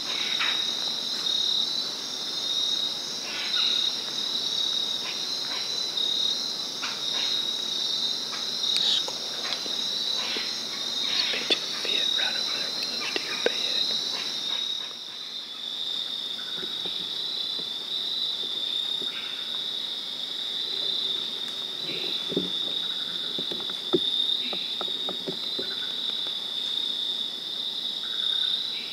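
Steady high-pitched chorus of crickets and other night insects in woodland, with scattered light ticks and rustles, mostly in the first half.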